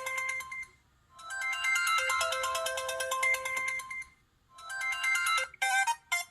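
Samsung Conquer 4G (SPH-D600) ringtone playing: a short electronic melody that repeats with brief pauses between the loops, then a different, choppier tune begins near the end.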